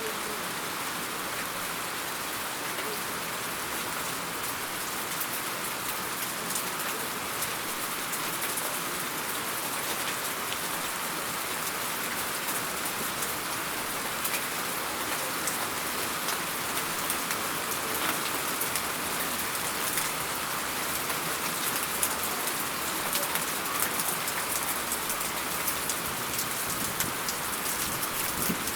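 Steady rain falling on a surface, an even hiss with many small drop impacts that grow denser and slightly louder in the second half.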